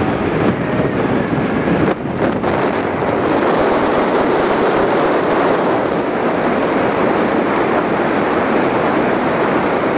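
Wind rushing over the microphone with road noise from a car moving at highway speed, heard with the phone held out the open side window. It is a loud, steady rush with a brief lull about two seconds in.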